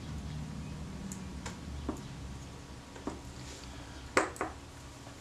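Small sharp metallic clicks and taps from handling a camera light-meter movement and small tools, a few single ones and then a louder quick double click about four seconds in, over a low steady hum.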